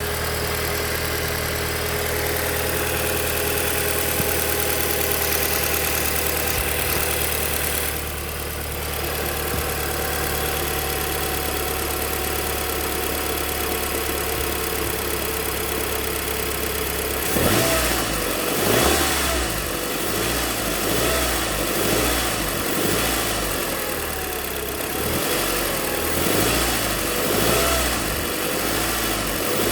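Audi Mk2 (8J) TT engine running with its accessory V-belt removed, carrying a faint strange noise from the belt-drive area that persists even with a new alternator pulley, tensioner pulley, belt and air-con clutch pulley fitted. About halfway through the sound turns uneven, its pitch wavering up and down and swelling every second or two.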